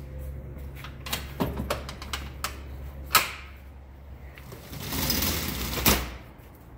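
A few clicks and knocks as tool mounts in a fire engine's compartment are handled, then the compartment's roll-up shutter door rattles down and shuts with a sharp clack near the end.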